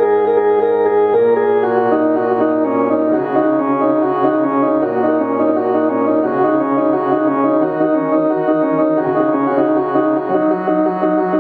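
Keyboard music: sustained chords that change every second or two.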